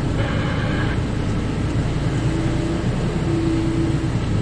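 Mercedes-Benz Actros MP5 truck's diesel engine running at low speed while manoeuvring, a steady low rumble. There is a short hiss in the first second, and two brief low hums follow a few seconds in.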